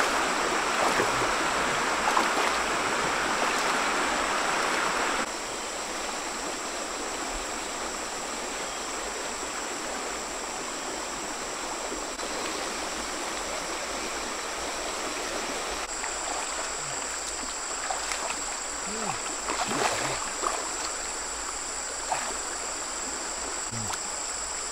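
Shallow river water flowing, with splashing as someone wades through it. After about five seconds the water sound drops to a quieter steady rush. Later a steady high-pitched whine joins it, with a few small splashes as the log in the stream is handled.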